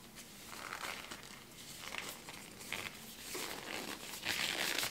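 Thin disposable plastic glove being pulled and stretched onto a hand, crinkling and rustling, louder near the end.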